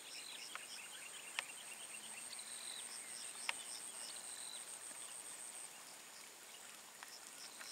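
Insects droning steadily on one high note, with runs of short chirps and a few sharp ticks.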